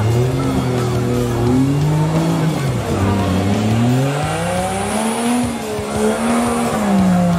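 Off-road buggy engine revving up and down again and again, its pitch rising and falling every second or two, working under load on a steep mud climb.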